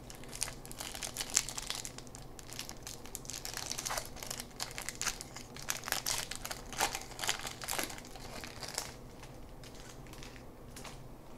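A baseball card pack's wrapper crinkling and crackling as it is handled and torn open by hand. The sound stops about nine seconds in.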